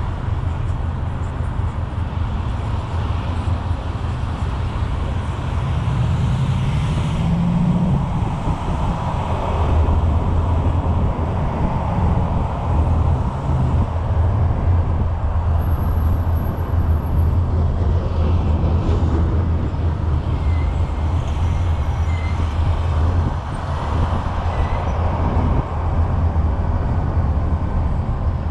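Road traffic: cars passing close by on a multi-lane road, a steady rumble of engines and tyres that swells as vehicles go past.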